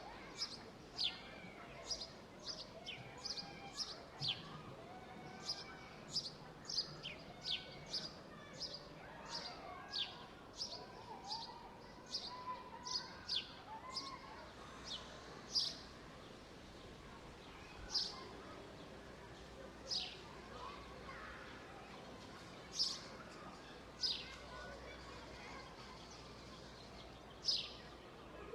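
Park ambience of small birds chirping: short, sharp downward chirps, several a second at first, thinning to one every couple of seconds in the second half, over a faint steady background.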